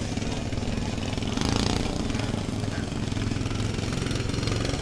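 Lawn tractor engines running with a steady, rapid firing buzz, growing louder about a second and a half in.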